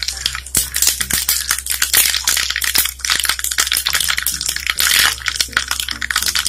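Mustard seeds spluttering and popping in hot oil in a small pan: a dense, irregular crackle of many quick pops, as the seeds burst during tempering.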